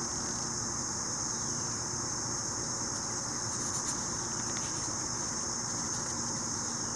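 Steady high-pitched chorus of insects droning without a break, over a low, even background rumble.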